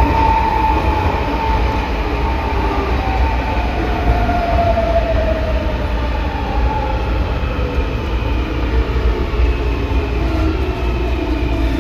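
Inside a metro car: the traction motor and inverter whine in several tones that fall steadily in pitch as the train slows, over a constant low growl from the reduction gearbox, which the uploader puts down most likely to a lack of lubrication.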